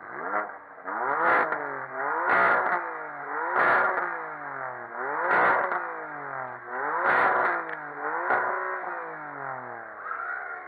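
A car engine revved hard about six times in a row, each rev climbing quickly and falling back toward idle, with a sharp crack at the top of most revs.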